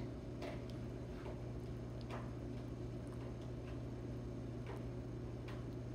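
Faint, irregular sticky clicks of homemade glue slime being kneaded and pulled by hand, over a low steady hum.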